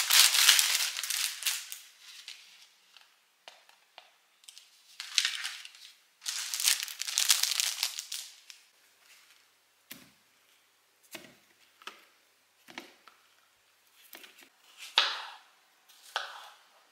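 Plastic bag of croissants crinkling loudly as it is opened and handled, in several bouts. Then come a few separate short knocks, and near the end a knife cutting strawberries on a wooden chopping board.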